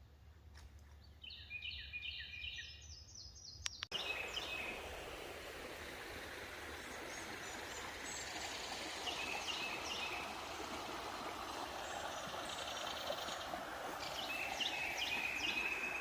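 Small birds calling in quick repeated series of chirps. About four seconds in, a steady rush of flowing creek water starts abruptly and continues under further bird calls.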